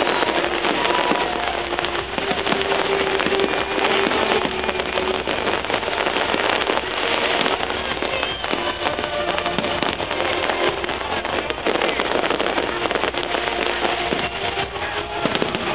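Fireworks display: a dense, continuous crackle from bursting gold crackling shells, a steady sizzle like heavy rain with no single bang standing out.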